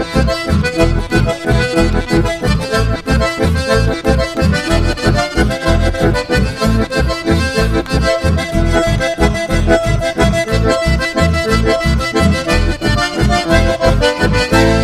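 Instrumental passage of the song without vocals: accordion carrying the melody over a steady, regular bass beat.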